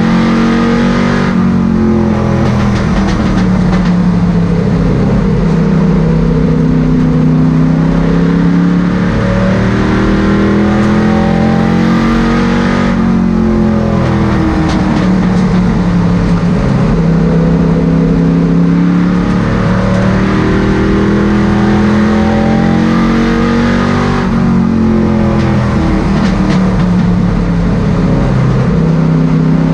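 Limited Late Model race car's V8 engine, heard from inside the cockpit at racing speed, running loud and continuously. Its note climbs and drops again and again as the car accelerates and eases off through each lap of the oval.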